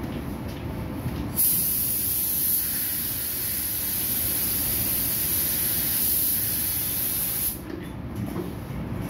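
Gravity-feed paint spray gun hissing as the trigger is held for one continuous pass of about six seconds over a car bumper. It starts sharply about a second and a half in and cuts off suddenly near the end, over a steady low rumble.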